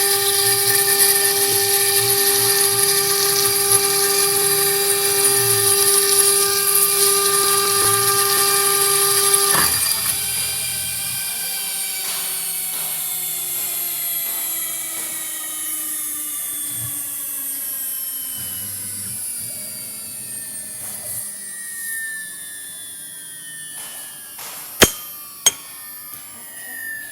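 CNC router spindle running with a steady high-pitched whine. About a third of the way in it is switched off, and the whine slides steadily down in pitch and fades as the spindle spins down. Two sharp clicks come near the end.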